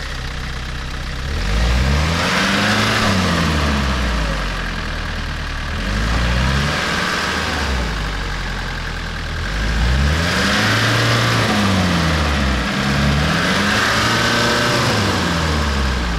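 A 4x4's engine revving up and falling back again and again as the vehicle tries to drive out of deep snow. Each rev comes with a hiss that fits tyres spinning in snow, and the engine drops back between attempts.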